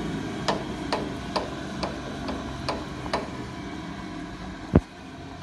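Mechanical table raise-and-lower drive of an SR4-1 thickness planer clicking about twice a second as the table moves, over a steady machine hum that slowly fades. A single heavy clunk comes near the end.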